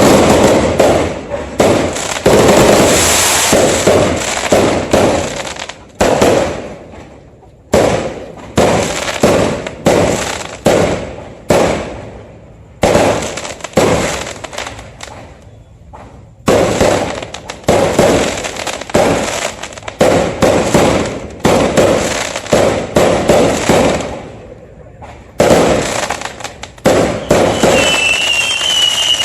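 New Year fireworks display: a rapid series of loud bangs and crackling bursts, each fading away, with a few short lulls in between. Near the end a wavering high whistle sounds over the bangs.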